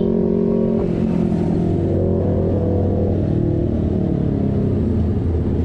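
Vespa GTS motor scooter's single-cylinder engine running at road speed in traffic, with heavy wind and road noise. The engine note wavers a little in pitch as the throttle changes.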